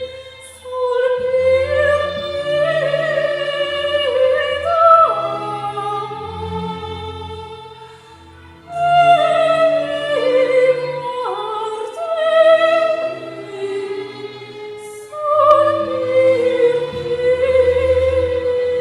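Operatic singing voice with vibrato over low, sustained instrumental accompaniment, in three phrases with short pauses between them.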